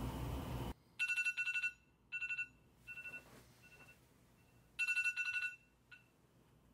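Phone alarm ringing: bursts of a fast-trilling electronic tone, about a second long, with fainter short repeats between them, going off three times. It is the morning wake-up alarm.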